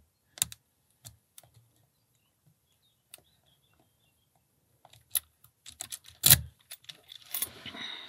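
Lock pick and tension wrench ticking and clicking against the pins and keyway of a Brinks 30 mm brass padlock held in a vise. The ticks are scattered, with a cluster in the second half and the loudest click near the end, followed by a longer scraping rustle.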